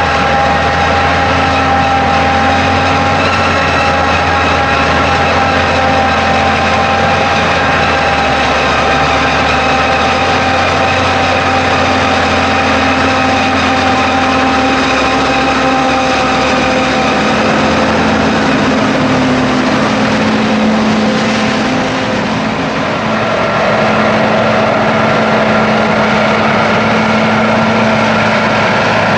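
Maize harvesting machinery running steadily: the heavy diesel engines of a self-propelled forage harvester and tractors, with a steady high machine whine over them. Past the middle the engine pitch shifts and the loudness dips briefly.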